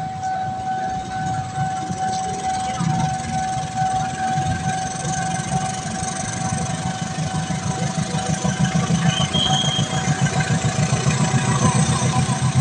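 Railway level-crossing warning alarm sounding a steady tone while a train passes. The wheels set up a rhythmic clatter over the rail joints, starting about three seconds in and growing louder toward the end.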